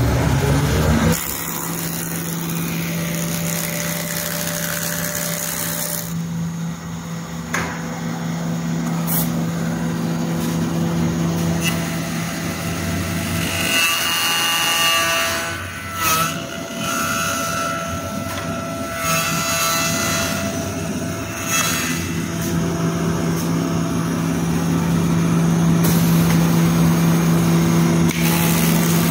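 CNC wood-turning lathe running with a steady motor hum while its cutter shapes a spinning wooden blank. The rough cutting noise grows loudest in the last few seconds, with a few short sharp sounds along the way.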